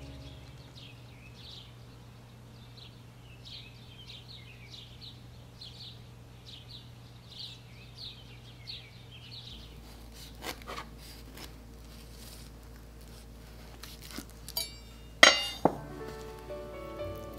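High, short chirping calls repeating about twice a second. Then a knife and avocado are handled on a wooden cutting board: a few light clinks, and two sharp knocks near the end, the loudest sounds. Soft background music returns at the very end.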